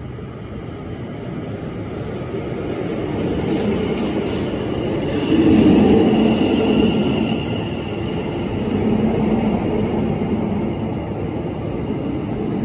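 London Overground Class 710 electric multiple unit pulling into a station: the rumble of wheels on rails grows steadily louder, peaking about five and a half seconds in as the front draws level, with a few clicks over the rail joints and a thin high whine as the train slows.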